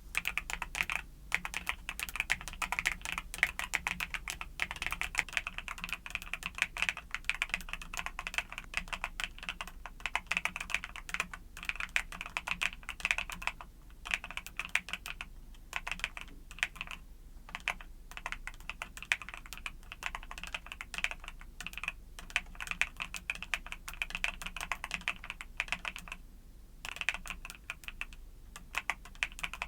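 Mechanical keyboard with YUNZII Cocoa Cream switches being typed on, a fast, continuous stream of keystroke clacks. The typing breaks off briefly a few times, longest about 26 seconds in.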